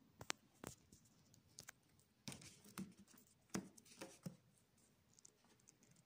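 Quiet handling noise from a leather-bound book being picked up and held: about eight short soft clicks and taps over the first four seconds or so.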